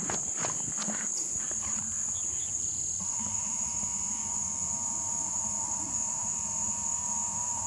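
Steady high-pitched drone of insects, such as crickets, in the summer weeds. In the first second or so it is mixed with running footsteps on grass that fade out, and from about three seconds in a thin wavering buzz joins.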